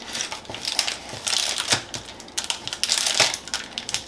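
Crinkling and crackling of a shiny bar wrapper being pressed open while a knife cuts through the chocolate-coated bar on a plastic cutting board, in irregular bursts.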